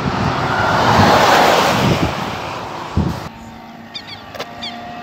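Double-decker coach passing close by: its engine and tyre noise swell to a peak about a second in and then fade. A little after three seconds the sound drops suddenly to a quieter roadside background.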